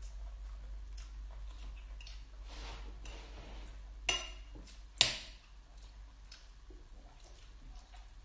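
Metal fork and spoon clinking and scraping against a glass bowl, with two sharp clinks about four and five seconds in, the first ringing briefly and the second the loudest. Soft eating sounds between.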